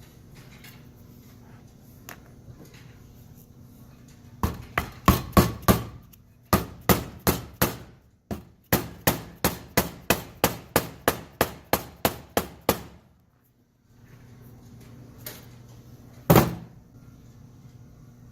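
Hammer tapping Revshift 95A bushings into a BMW E36 differential cover. A quick run of about two dozen sharp blows, roughly three a second, starts about four seconds in and lasts about eight seconds with two short breaks. One more single strike follows a few seconds later.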